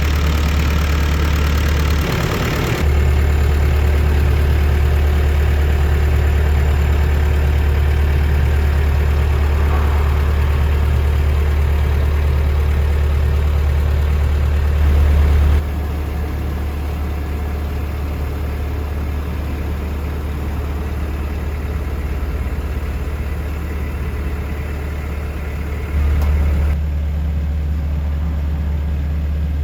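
Komatsu PC128US-8 excavator's diesel engine running at a steady idle, a deep even hum. Its level shifts abruptly a few times, dropping about halfway through and briefly rising near the end.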